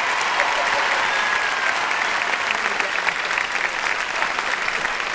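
Studio audience applauding steadily: a dense, even crackle of many hands clapping.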